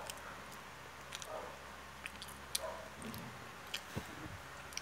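A child chewing a sandwich close to the microphone, with wet mouth clicks and smacks scattered through; the sharpest click comes about two and a half seconds in.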